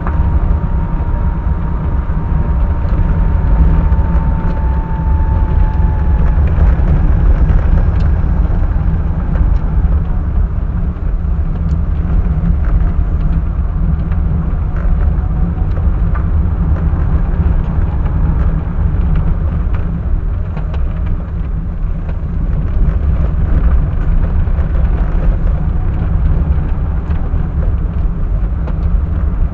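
Engine and road noise of a moving car, picked up by a dashcam's microphone: a steady, heavy low rumble, with a faint whine that slides slowly down in pitch over the first few seconds and a few small knocks.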